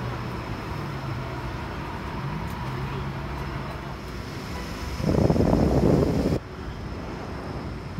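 Steady vehicle rumble, with a loud rough buffeting of wind on the microphone for about a second and a half, about five seconds in, that stops abruptly.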